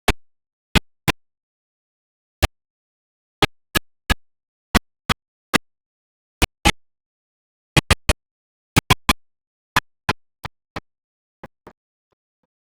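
A series of short, sharp clicks or pops at irregular intervals, about two dozen in all, with dead silence between them; the last few grow fainter toward the end.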